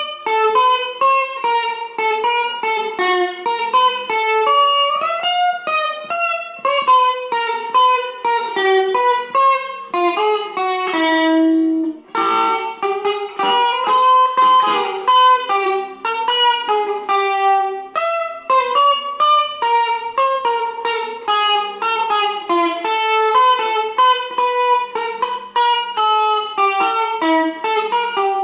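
Sunburst Stratocaster-style electric guitar played as a picked single-note melody. Near the middle there is a held note and a brief break before the melody resumes.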